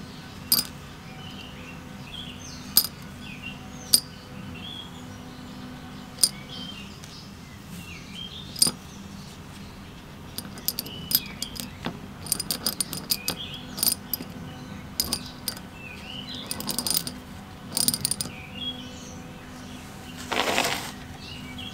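Small steel balls clicking and rattling against a metal housing as they are set in place around a shaft, part of a 1974 Briggs & Stratton 3 HP engine being reassembled. A few single sharp metallic ticks come first, then many quick clicks come in clusters in the second half, and a short rattle comes near the end.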